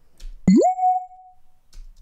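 Synthesized notification blip from a Spector synthesizer bell-tone patch. A sharp click starts a tone that sweeps quickly up in pitch and settles into a steady bell-like note lasting about a second.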